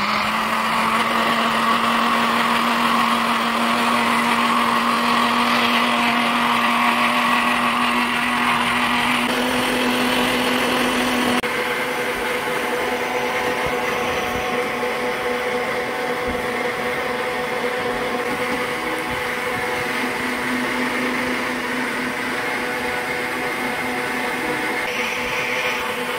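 Countertop blender motor running steadily as it purées a tomato and chile mixture, its note rising slightly about nine seconds in. From about eleven seconds a steady motor hum with a different tone carries on.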